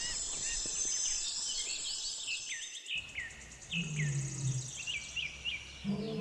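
Natural ambience of many birds chirping with a steady high insect drone, changing abruptly about three seconds in. In the second half, two short low calls sound, the second, near the end, louder.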